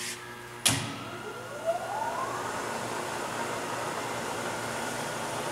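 The variable-speed spindle of a Southwestern Industries Trak DPM bed mill starting in low and back gear. A sharp click comes under a second in, then the spindle winds up with a rising whine and settles into a steady, quiet run.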